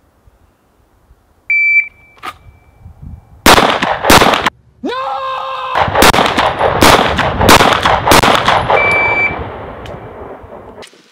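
A short electronic shot-timer beep, then a string of about six pistol shots over some four and a half seconds, each followed by a long echo. A second timer beep sounds near the end as the echoes die away.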